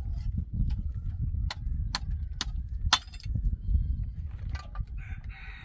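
Four sharp knocks about half a second apart, the last the loudest, over a steady low rumble.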